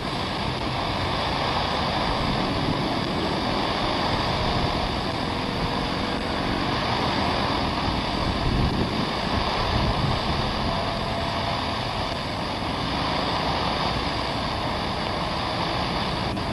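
Steady jet engine noise from a twin-engine airliner taxiing.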